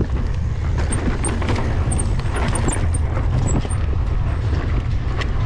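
Mountain bike ridden fast along a dirt trail: a steady low rumble of tyres on dirt and wind on the microphone, with frequent clicks and rattles from the bike.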